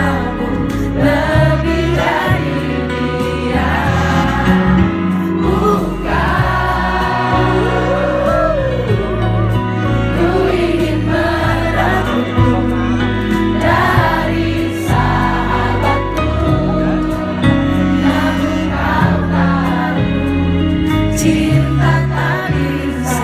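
Live pop ballad performance: singing over band accompaniment with a steady bass.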